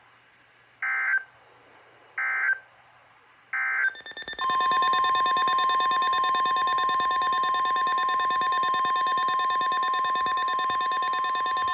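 Emergency Alert System signalling: three short bursts of warbling digital data tones about a second apart. From about four seconds in comes a loud, steady alert tone near 1 kHz with a fast, even pulsing buzz over it. The tones mark the end of one weather warning and the start of the next.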